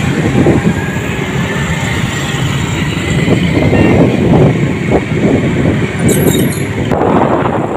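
Motorcycle running along a road, recorded from on the bike, with wind rushing and buffeting over the microphone.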